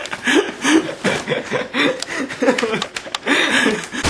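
People laughing in short, breathy giggling bursts, with a brief burst of static hiss at the very end.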